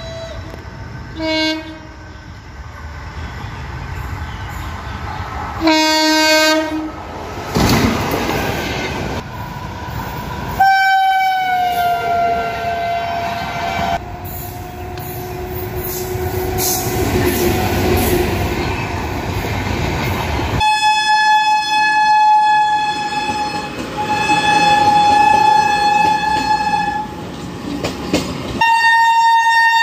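Indian Railways electric locomotive sounding its horn over the noise of an express train running through at speed. Short blasts come about a second in and around six seconds, then a longer blast from about eleven seconds slides down in pitch. Long steady blasts follow from about twenty-one seconds on, over the rumble and clatter of the wheels on the track.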